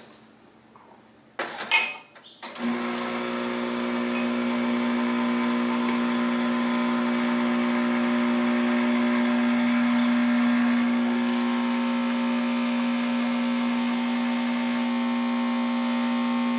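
A short clatter, then about two and a half seconds in the ECM Classika PID espresso machine's vibratory pump switches on and runs with a steady hum while an espresso shot is pulled.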